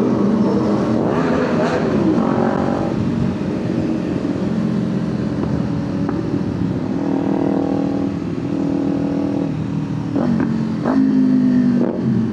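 Kawasaki Ninja 500's parallel-twin engine running as the bike is ridden, its pitch rising and falling several times with the throttle, over steady wind and road noise.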